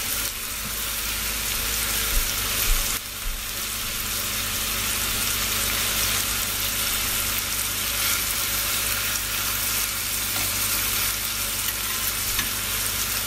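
T-bone steak sizzling steadily in butter in a frying pan as its second side cooks, with a brief dip in loudness about three seconds in.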